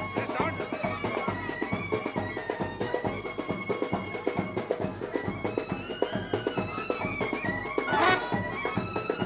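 Indian wedding band music: a reedy wind instrument holds and bends a melody over fast, dense drumming. There is one brief loud crash about eight seconds in.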